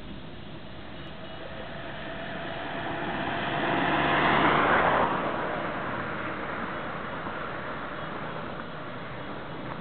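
Road vehicle driving past: engine and tyre noise swells to a loud peak about four to five seconds in, its pitch bending down as it passes, then falls away. Under it runs the steady diesel engine of a MAN LE 220 fire engine driving slowly.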